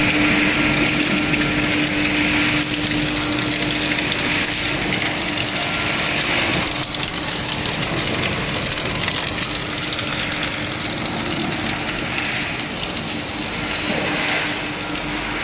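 Corn curl extrusion line running: a steady motor hum, strongest in the first few seconds, under a dense mechanical rattle and hiss from the extruder and its drives.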